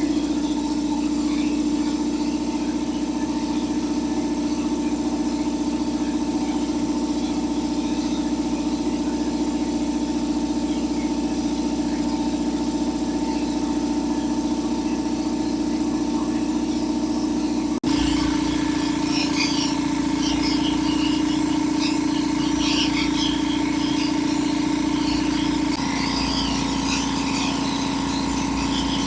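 Belt-driven air compressor running steadily with a low hum, pumping up its tank pressure toward 120 psi after being revived from sitting. In the later part a light, scattered rattle joins the hum.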